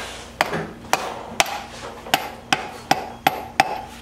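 A mallet tapping a socket about twice a second, about ten light taps, driving a new pilot bearing into the bore of a BMW S52 crankshaft.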